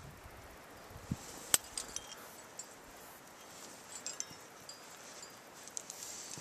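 Metal climbing gear clinking now and then as a roped climber scrambles over rock: a few light, ringing clinks, the sharpest about one and a half seconds in, with more near the middle and near the end.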